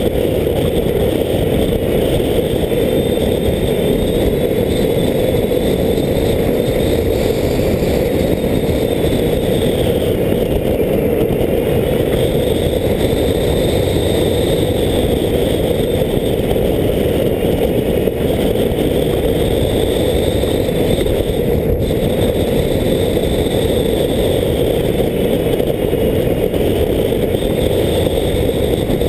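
A model aircraft's motor and propeller running steadily in flight, heard from the aircraft's own onboard camera: a high whine that slowly rises and falls over a dense rushing noise.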